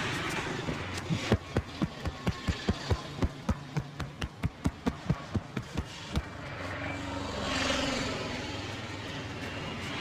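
A barber's hands striking a client in a percussive massage: a rapid run of slaps, about four to five a second for some five seconds, then stopping. Street traffic runs underneath and swells briefly after the slaps end.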